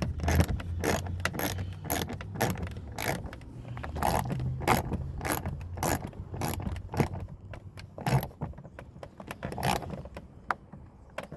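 Ratchet wrench clicking in quick short strokes, about two to three clicks a second, as the bolt is run in and tightened; the clicks thin out and stop about ten seconds in.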